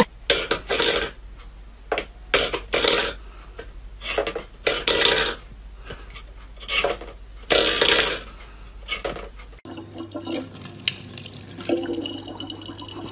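Steel pet bowls scraping and knocking on a wooden floor in irregular bursts. About ten seconds in, a thin stream from a tap runs steadily into a plastic bottle.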